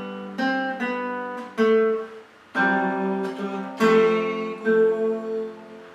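Acoustic guitar playing a slow series of plucked two- and three-note chords, a new chord every second or so, each left to ring.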